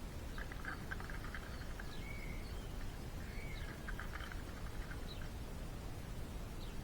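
Small birds calling: two spells of rapid chattering notes with a couple of short whistled notes between them, over a steady low rumble.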